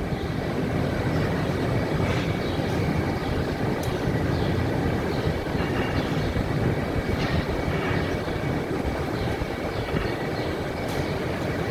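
Barn machinery running with a steady rumble and hiss and a faint high whine.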